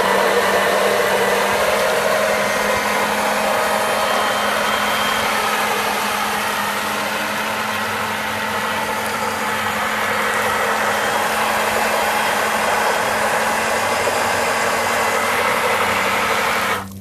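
Electric motor of a 3D-printed RC snow blower running steadily, driving its impeller through a gearbox with printed ABS gears. The impeller smacks and churns the water and throws it out of the chute: a dense rushing spray over a steady low hum. It cuts off suddenly near the end.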